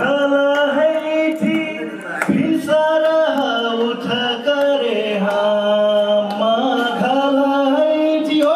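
A man singing a folk song into a microphone over a PA, in long held notes that slide from one pitch to the next, with a few drum strokes.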